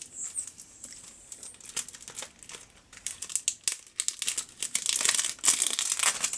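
Plastic shrink-wrap being peeled and torn off a CD jewel case: scattered crackles at first, growing into denser, louder crinkling in the second half.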